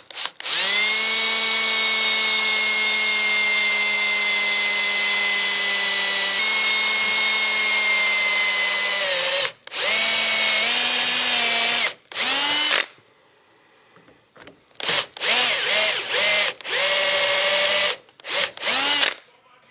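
Electric drill running a step drill bit through a metal bracket, lubricated with cutting fluid: one steady run of about nine seconds with the motor whine sagging slightly under load, then a string of short bursts with a pause in the middle.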